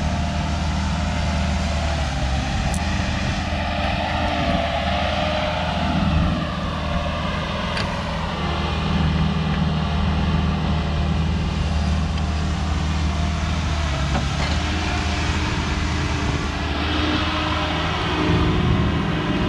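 Diesel engines of a Kobelco excavator and a dump truck running steadily in a steady drone, the pitch shifting a couple of times as the engine load changes.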